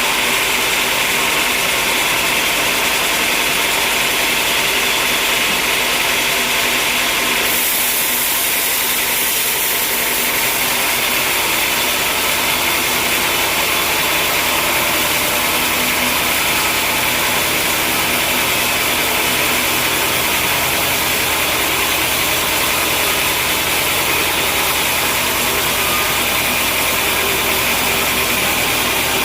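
Sawmill machinery running steadily: a loud, even mechanical noise with a held hum. About seven seconds in, a brighter hiss joins it, and a deeper hum builds a few seconds later.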